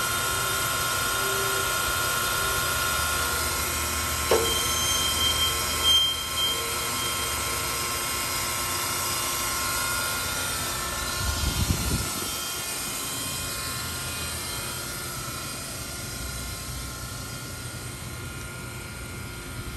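Toshiba Shibaura TX-16 vertical boring mill's cross-rail elevation drive running, a steady mechanical drone with a whine. A short low rumble with knocks comes about twelve seconds in, after which the machine's hum runs on more quietly.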